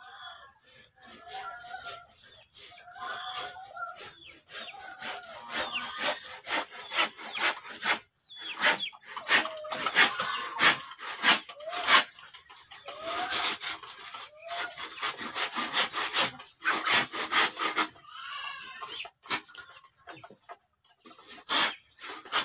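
Bamboo pole being cut by hand with a blade in quick back-and-forth strokes, pausing twice, with chickens clucking and calling over it.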